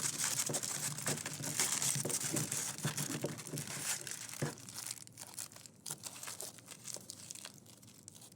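Aluminium foil being rolled and squeezed into a stick, crinkling loudly for the first half, then fainter and more sparsely toward the end.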